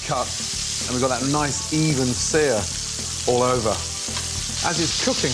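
Lamb leg steak searing in hot oil with garlic cloves in a frying pan, a steady strong sizzle.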